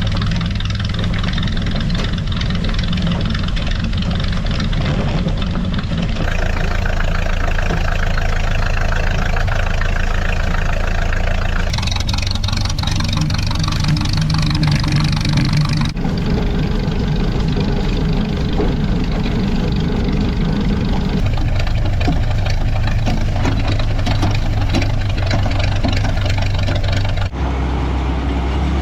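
Farm tractor engine running steadily while pulling a hay rake, the sound changing abruptly about four times as it cuts between shots.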